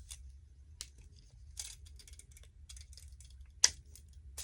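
Rummaging through small craft supplies: light rustling and small clicks and knocks, with two sharp clicks near the end.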